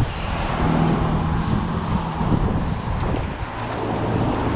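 Street traffic noise with a motor vehicle engine running close by, its low hum dropping in pitch toward the end.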